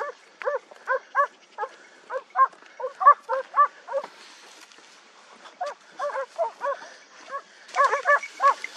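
Hunting dog baying in quick, high, yelping barks, about three to four a second, in two runs broken by a short pause about four seconds in.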